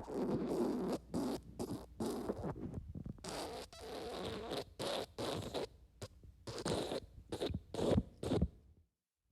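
Wet fart sound effect: a long, rasping, spluttering fart for about three and a half seconds, then a string of about nine short wet bursts.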